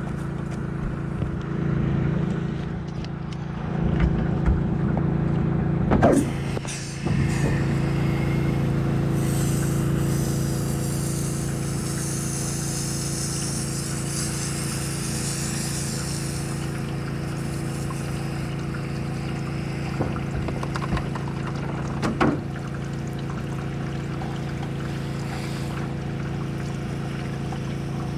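Pressure washer engine running steadily, with the hiss of its water spray rising for several seconds near the middle. A few knocks sound about six seconds in and again later.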